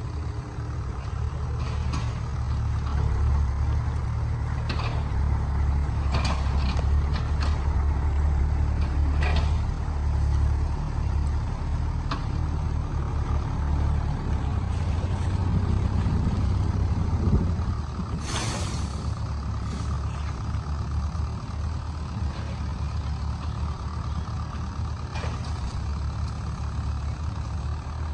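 Logging truck's diesel engine working hard as the truck backs up a muddy slope, with a few knocks along the way. About 18 seconds in, a short air-brake hiss sounds and the engine settles to a lower, steady running.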